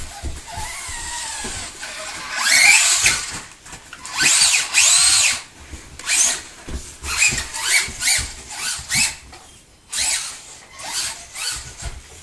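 Electric motor of a Helion Animus RC truck whining in throttle bursts, its pitch rising as the truck accelerates: two longer runs, then a string of quick, short blips.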